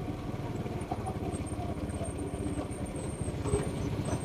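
Small motor scooter engines running at low speed, a steady fast putter.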